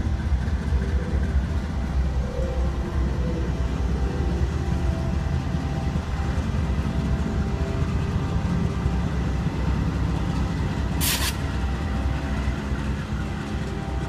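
CSX diesel freight locomotives rolling slowly past with a steady, deep engine drone. A short hiss comes about eleven seconds in.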